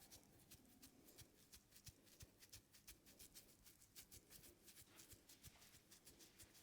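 Faint hand massage of the scalp: quick rubbing and patting strokes of fingers through hair, several a second in a steady rhythm.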